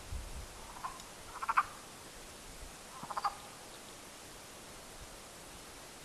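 An unidentified wild animal calling: short rattling, croak-like calls, each a quick run of pulses. A faint call comes about a second in, then two louder ones a second or two apart.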